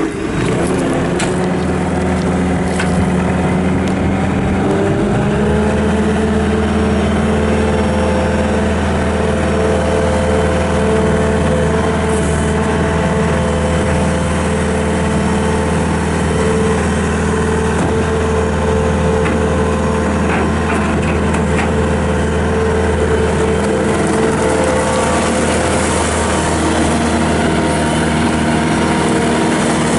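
2013 Bobcat S770 skid steer's Kubota turbo-diesel engine, freshly started, running at low speed. About five seconds in it is throttled up, rises in pitch, and then runs steadily at the higher speed.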